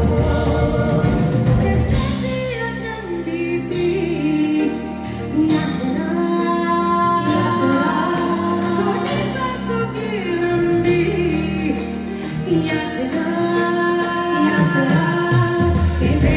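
Live band with singers holding long, wavering sung lines. The heavy bass and drums fall away about two seconds in, leaving mostly voices over lighter accompaniment, and come back in near the end.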